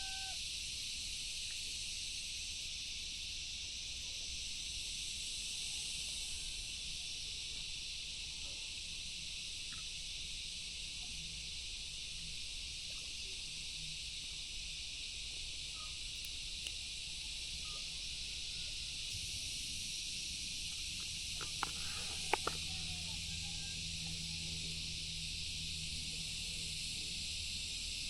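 Steady high-pitched insect chorus, a continuous shrill hiss. A few sharp clicks come close together about three-quarters of the way through.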